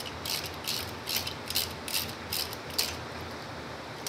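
Hand socket ratchet clicking in short bursts, about two or three a second, as it is swung back and forth to loosen a terminal nut on a golf cart's electric drive motor. The clicking stops about three seconds in.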